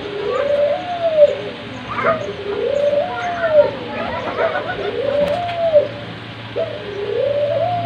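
Caged ringneck doves (Barbary doves) cooing: four rolling coos about two seconds apart, each climbing in pitch and dropping off at its end. A steady low hum runs underneath, with a few faint higher chirps between the coos.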